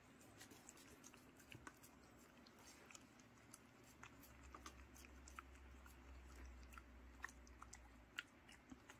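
Faint, scattered wet clicks of a dog chewing and licking steamed sweet potato from a person's palm. A faint low hum sits under it from about four to eight seconds in.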